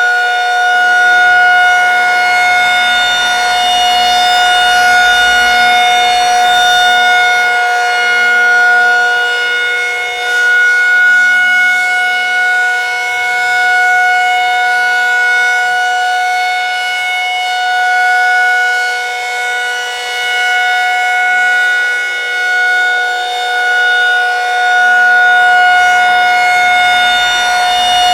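Federal Signal 2001-SRNB rotating outdoor warning siren sounding a steady alert tone, a chord of two tones held at one pitch. The sound slowly swells and fades every few seconds as the siren rotates.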